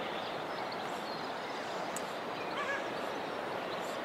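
Steady, even rush of a trout stream's flowing water, with a faint bird chirp about two and a half seconds in.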